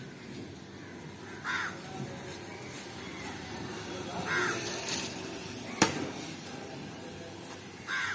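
Crows cawing three times, a short call roughly every three seconds, over a steady low background murmur. A single sharp knock, louder than the calls, comes about six seconds in.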